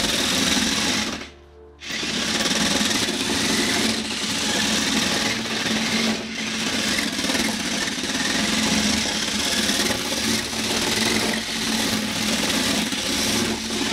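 Small electric drive motors of a toy RC car with roller (mecanum-type) wheels whirring as it drives, each of the four wheels driven separately; the whirr stops briefly about a second in, then runs on steadily.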